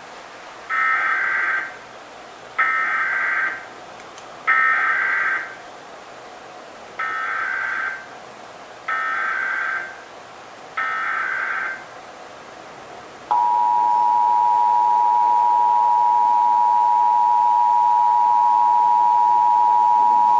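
Emergency Alert System test signalling. First come six bursts of SAME digital header data, each about a second long and about two seconds apart, the first three louder than the last three. About 13 seconds in, the steady two-tone EAS attention signal begins and holds.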